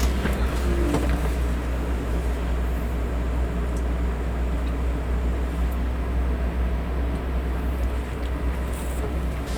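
Electric fan running steadily: a low even hum with a soft whooshing hiss over it, with a few faint light ticks.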